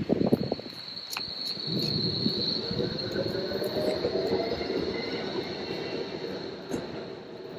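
Tram running on its rails with a steady high wheel squeal, over a low rumble and a motor whine that rises slightly in pitch mid-way. A few low thuds at the very start.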